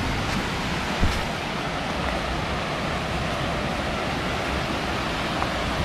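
Steady rush of water from a cascading forest waterfall, with a faint knock about a second in.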